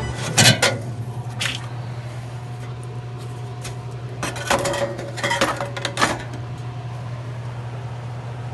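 Metal clanks and knocks from hand work on a vending machine's refrigeration unit, a few sharp hits near the start and a cluster of them midway, over a steady low hum.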